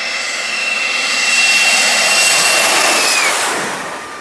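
Jet airliner passing low overhead: a steady high turbine whine over a rush of engine noise swells to its loudest, then the whine drops in pitch about three seconds in as the aircraft passes and the sound fades.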